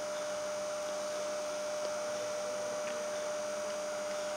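Steady background hiss with a constant mid-pitched electrical whine: the recording's own hum and noise floor, with no other sound standing out.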